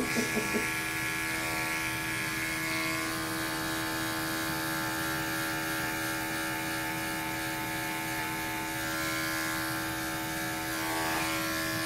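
Corded electric pet grooming clippers running with one steady, even hum as they shave matted fur off a cat close to the skin.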